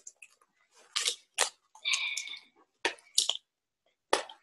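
Crackling and rustling of tape and plastic hairbrushes being handled as they are fitted onto a hand. The sound comes in about six short bursts, with a longer scraping one about two seconds in.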